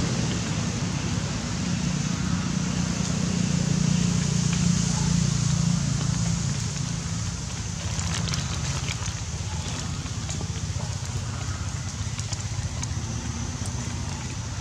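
Steady outdoor background noise with a low rumble, louder for the first half and easing off after about six seconds.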